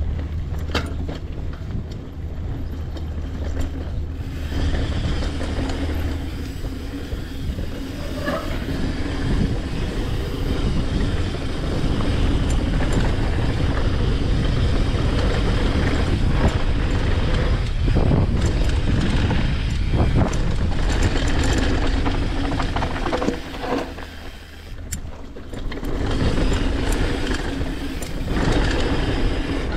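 Mountain bike rolling fast down a dirt and gravel trail: a steady rush of tyre noise over the ground, with frequent sharp clicks and rattles from the bike. The noise drops briefly about three-quarters of the way through, then picks up again.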